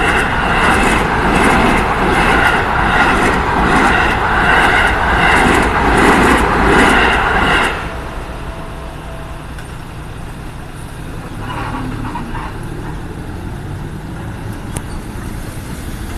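Railway level-crossing warning bell ringing in a rapid, even clang about twice a second over a low rumble; both cut off suddenly about eight seconds in. A steady low hum of traffic remains after that.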